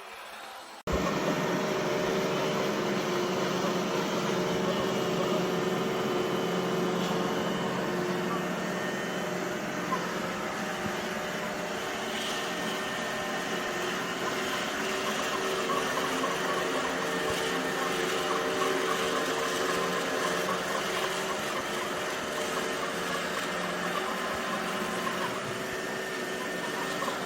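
iRobot Roomba j7+ robot vacuum running: a loud, steady whirring motor noise with a low hum, switching on abruptly about a second in.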